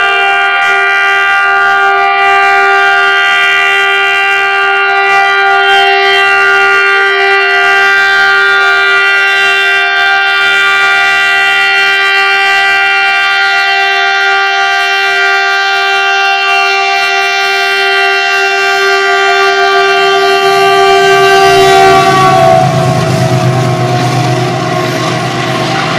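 GE WDG 4G diesel locomotive's horn blown in one long, unbroken several-note chord, loud, dipping slightly in pitch just before it stops near the end. After it, the running noise of the locomotive and its loaded freight wagons takes over as a low rumble.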